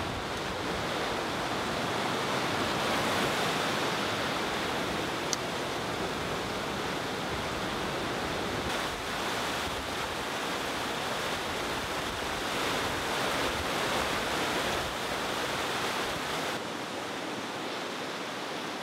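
Rushing mountain stream tumbling white over boulders, a steady rush of water that turns slightly quieter and duller near the end.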